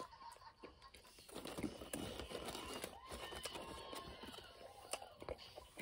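Faint crinkling and rustling of paper fast-food packaging with scattered small clicks, as fries are handled while eating.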